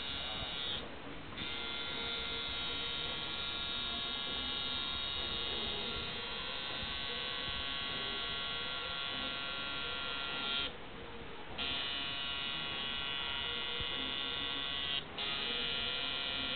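Coil tattoo machine buzzing steadily as it works ink into skin. It cuts out briefly about a second in, again for about a second near the eleventh second, and for a moment near the end.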